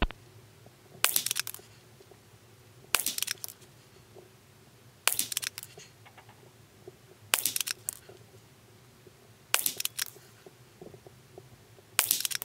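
Ruger American Rimfire bolt-action .22 LR rifle with a moderator firing CCI Standard Velocity rounds, six shots about two seconds apart. Each shot is a short, sharp crack that trails off briefly in the indoor range.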